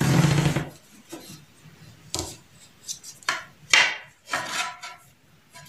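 Wooden tailor's L-square scraping and rubbing against fabric as it is slid and repositioned, in several short separate strokes, with a louder bump at the very start.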